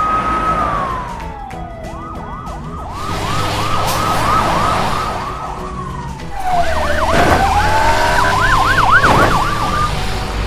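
Police siren: a held tone that glides down, then a fast yelp cycling up and down about two to three times a second, then another fall and slow rise with a second fast yelp over it. Two sharp knocks sound about 7 and 9 seconds in.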